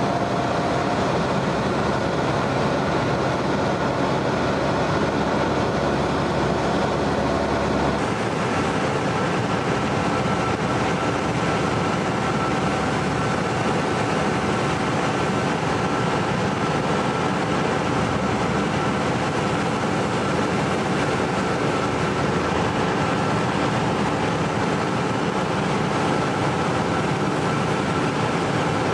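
Cessna 172N Skyhawk's four-cylinder Lycoming engine and propeller running steadily in cruise, heard inside the cabin as a dense, even noise with faint steady tones.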